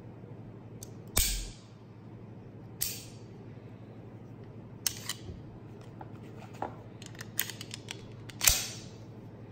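Sharp metallic clicks and snaps from the action of a stainless Walther PPK/S .380 pistol being worked by hand, a second or two apart. A quick run of small clicks near the end leads into the loudest snap as the magazine is handled.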